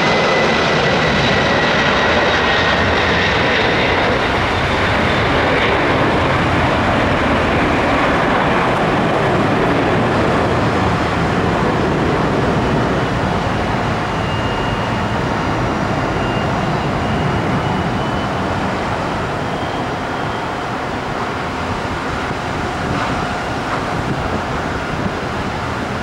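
A McDonnell Douglas MD-11F freighter's three jet engines at takeoff thrust as it lifts off and climbs away: loud, steady jet noise. A high whine falls in pitch over the first few seconds, and the noise grows slowly fainter as the plane gains height.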